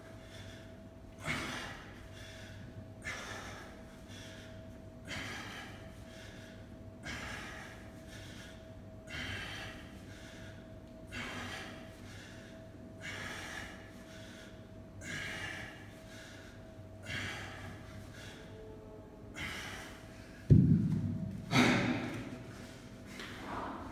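A man breathing out hard in a short huff about every two seconds, in rhythm with kettlebell swings. About twenty seconds in comes a heavy thud, the kettlebell being set down, followed by a few heavy breaths.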